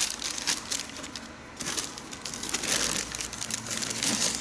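Brown kraft wrapping paper crinkling and rustling as hands lift and pull it aside inside a cardboard shoebox, in irregular crackling bursts with a short lull about a second in.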